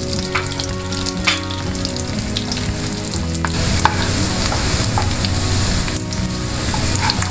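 Crushed garlic sizzling in hot melted butter in a nonstick frying pan, with scattered pops and clicks. A wooden spatula stirs it through the pan.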